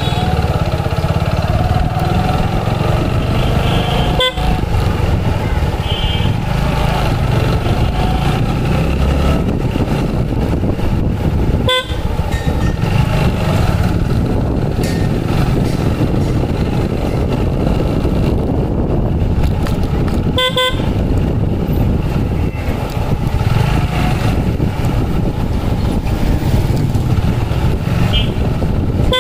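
Road traffic: a steady low engine rumble with short vehicle horn toots sounding about half a dozen times.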